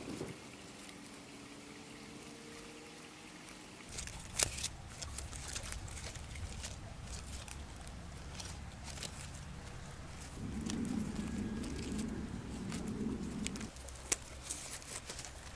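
Cattail leaves rustling and crackling with small irregular clicks as they are twisted by hand into cordage. A low wavering drone runs for about three seconds past the middle.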